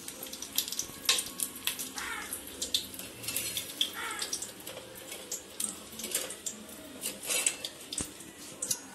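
Whole spices (bay leaf, cardamom, cloves) frying in hot oil in a pot over a low flame: a soft sizzle with irregular small pops and crackles.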